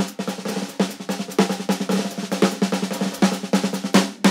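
Music: rapid, busy drum hits over a steady low held note.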